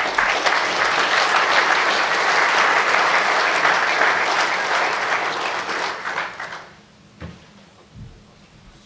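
A large audience applauding, dying away after about six and a half seconds. Two short, faint knocks follow near the end.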